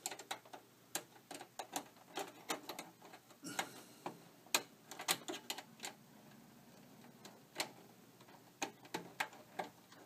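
A screw being turned and tightened into the expansion-card bracket of a desktop computer's sheet-metal case: a run of small, irregular metallic clicks and ticks.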